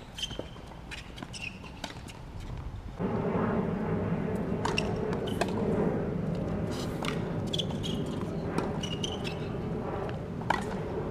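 Tennis ball struck by rackets in a rally: sharp, separate hits a second or more apart. Under them, a steady droning noise from an unseen machine or vehicle starts suddenly about three seconds in and becomes the loudest sound.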